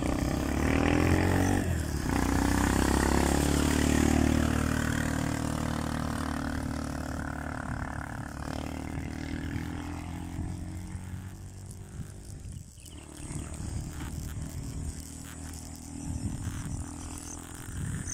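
A motor vehicle engine running close by, loudest over the first few seconds and then fading away gradually, over a rushing hiss of wind and road noise.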